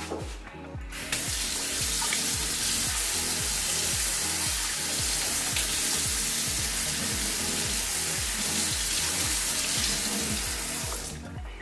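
Water tap turned on about a second in and running steadily into a sink, then cut off near the end.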